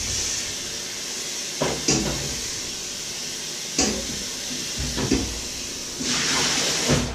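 Water running from a kitchen tap, with about four knocks of metal pots and bowls. The water gets louder near the end and is then shut off suddenly.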